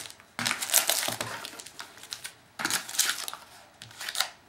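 Crinkling and crackling of foil trading-card pack wrappers being handled, in two bouts with small clicks and taps.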